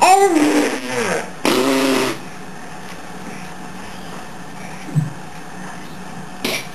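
A voice making two short pitched vocal sounds in the first two seconds, the first gliding down in pitch, then a steady low hum with a faint blip about five seconds in and a short hiss near the end.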